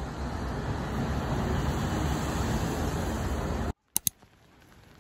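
City street traffic on a rain-wet road: a steady rush of passing cars that cuts off abruptly near the end, followed by two short clicks and quiet.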